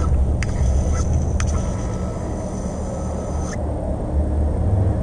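Bearing spin top whining as it runs along a taut string, with a couple of sharp clicks; the high whine cuts off suddenly about three and a half seconds in as the top is caught in the hand. A steady low rumble lies under it all.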